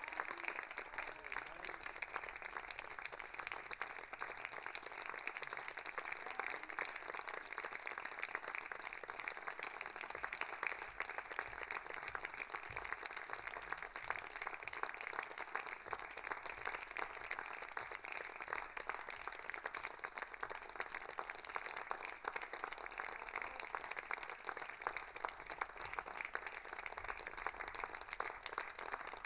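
Audience applauding, a faint, dense and steady patter of many hands clapping.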